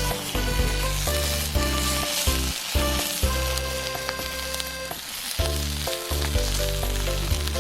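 Food sizzling as it fries in a hot pan, a steady crackling hiss. Background music plays over it.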